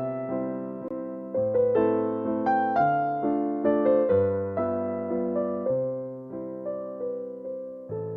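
Background music: a slow piano or electric-piano melody, each note struck and fading, about two notes a second.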